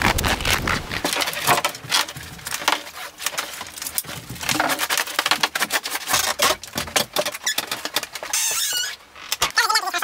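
Rapid clicks, knocks and scraping rustles from handling and moving about, with a short rasping hiss a little before the end.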